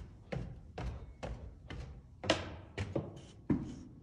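Footsteps climbing an open staircase with wooden treads, about two steps a second, two of them louder a little past halfway and near the end.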